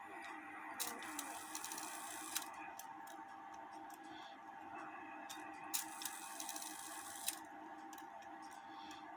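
1880 Albert Flieg cuckoo clock movement being tripped by hand: twice a sharp click, a short run of rapid whirring clicks from the strike train for about a second and a half, then a click as it locks.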